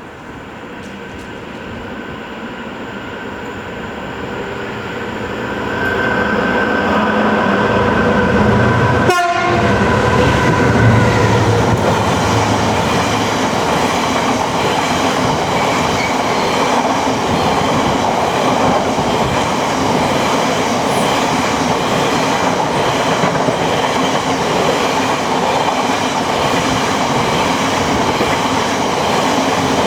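GBRf Class 66 diesel locomotive, with its EMD two-stroke V12, approaching and passing at the head of a loaded coal train. The engine grows louder over the first six seconds or so. After that the coal hopper wagons roll by with a steady rumble and clatter of wheels over rail joints.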